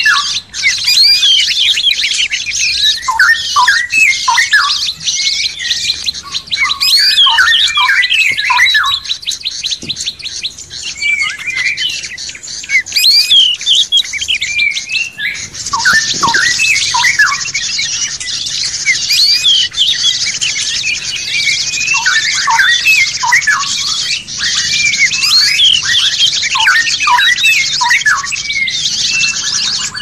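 Songbirds singing in a compilation recording used as a masteran (song-tutoring track for kept birds): many rapid, overlapping chirps, trills and whistled calls. About halfway through, the mix shifts to a denser, higher-pitched chatter.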